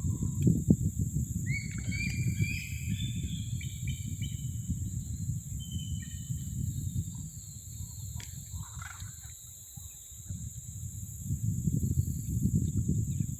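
A steady high-pitched insect drone coming from the trees, with a quick run of short rising calls about two seconds in and a few scattered calls later. A low rumbling noise lies underneath and eases off for a moment around ten seconds in.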